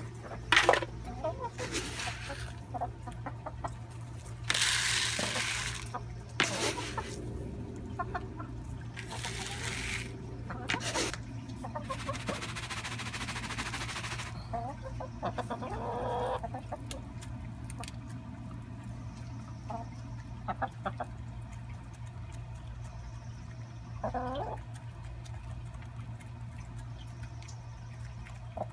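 Backyard chickens clucking now and then, with several short bursts of hissing noise in the first half and a steady low hum underneath.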